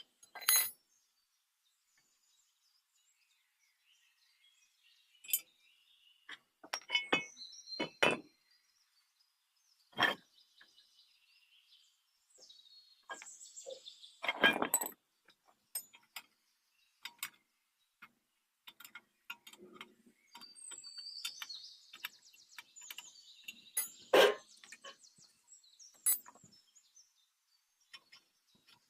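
Scattered sharp clinks and knocks of metal parts and tools being handled, irregular and several seconds apart, the loudest about ten seconds in, about halfway through, and near the end. Birds chirp in the background, most busily in the last third.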